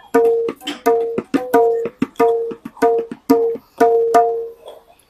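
Tabla dayan (right-hand drum) played by hand in a fast run of strokes, about four to five a second, each with a clear ringing pitch, stopping just before the end. The drum has its wooden tuning blocks hidden inside the shell and is not yet tuned.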